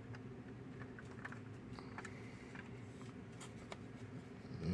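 Faint, scattered light clicks and taps of small parts being handled, from test-fitting wheels onto a diecast model car, over a low steady hum.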